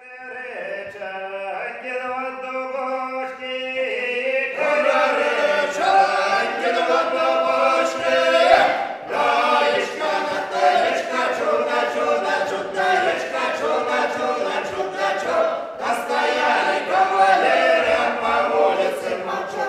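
Men's folk ensemble singing a traditional Belarusian song a cappella, in unaccompanied part-singing. A few voices open the song, and the full group joins about four seconds in.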